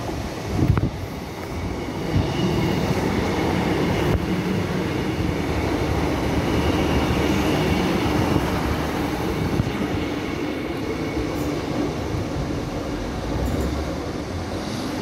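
ScotRail Class 156 diesel multiple unit passing close by and running away down the line: a steady underfloor diesel engine drone with rail and wheel noise, and a faint high wheel squeal.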